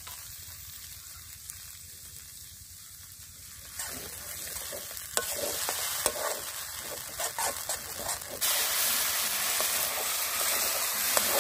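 Spice paste of ground poppy seed, mustard and green chilli sizzling in hot oil in a pan. A spatula starts scraping and stirring it about four seconds in, and the sizzling gets suddenly louder about eight seconds in.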